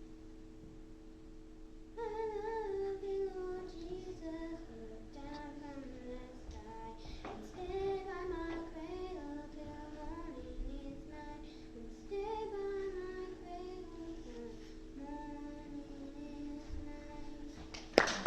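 A solo female voice sings a slow melody over a sustained accompaniment chord. The chord sounds alone at first, and the voice comes in about two seconds in.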